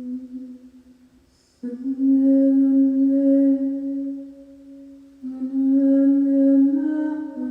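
A woman's voice toning long, wordless held notes for sound healing. An earlier tone dies away in the first second and a half, then two steady notes begin suddenly and each is held for two to three seconds.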